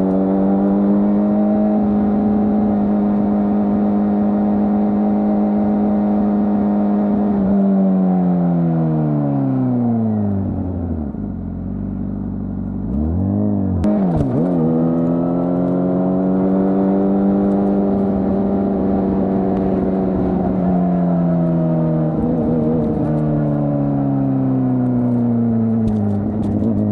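A 2025 Honda CBR600RR's inline-four engine, fitted with its stock exhaust, running at a steady high note while riding. About a third of the way in it winds down as the bike slows, nearly to idle, gives a quick blip, then pulls back up to a steady cruise. It eases off and picks up again near the end.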